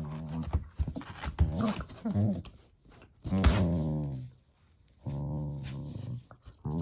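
Medium-sized mixed-breed dog growling: several low, drawn-out growls of about a second each with short gaps between, mixed with a few small clicks.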